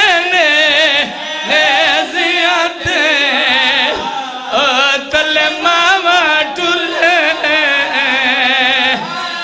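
A man singing a mourning lament in Punjabi, in long wavering phrases with heavy vibrato and short pauses for breath.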